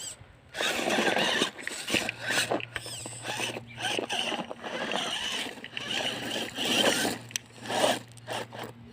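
RC rock crawler with a 540 brushless motor driving over rocks in irregular bursts: the motor whirring and the tyres and chassis scraping on rock as it struggles for traction and bottoms out on the skid plate.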